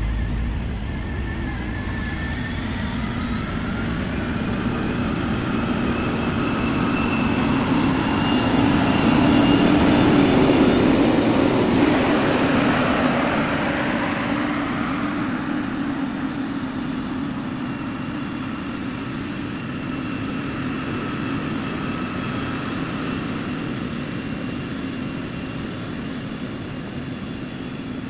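Heavy construction machine's diesel engine running, with a steady low hum and a faint whine above it. It grows louder to a peak about ten seconds in, then slowly fades.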